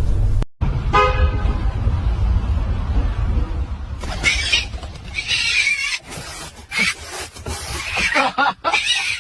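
Angry cats hissing and spitting in several sharp bursts over the second half, over a low rumble of street traffic.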